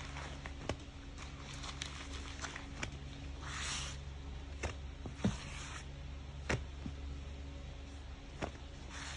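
Wet sponge squeezed and pressed in thick soapy foam by a gloved hand: scattered sharp squelches and a crackle of bursting suds, with a longer hiss of foam about three and a half seconds in. A steady low hum runs underneath.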